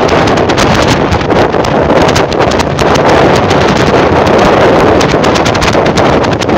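Loud wind buffeting the microphone of a moving vehicle at road speed, a dense rushing and fluttering noise, with the vehicle's running and tyre noise mixed in.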